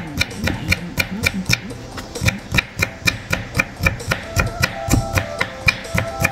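Chef's knife slicing raw potato into thin strips on a wooden cutting board: a steady run of sharp knocks, about three strokes a second, over background music.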